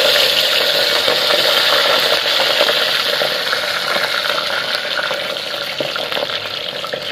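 Hot oil sizzling in a clay handi as raw chicken pieces are added one by one. The hiss is loudest at first and slowly eases off.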